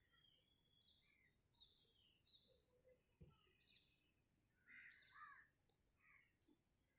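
Faint birds chirping and calling in scattered short phrases, with one soft knock about three seconds in.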